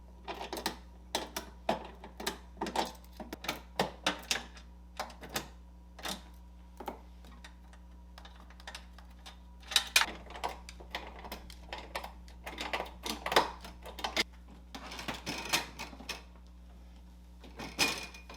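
Irregular runs of sharp metallic clicks and knocks as the bolts holding the refrigerator's freezer-drawer door are loosened and taken out with a hand tool.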